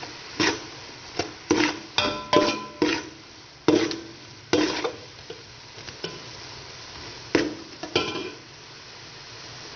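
Metal spoon scraping and clinking against a metal cooking pot while stirring chopped gizzards in soy sauce, with irregular strokes that come thick for the first few seconds, then two more after a pause. Under it runs a steady low sizzle from the pot on the heat.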